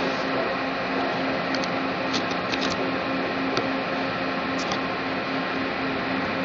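Steady machinery noise in a steel pipe works, with a low hum that throbs faintly and evenly, and a few light clicks scattered through it.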